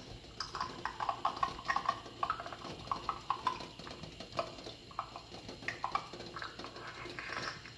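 Lid of a boiling pot rattling in quick, irregular clicks, a few to several a second.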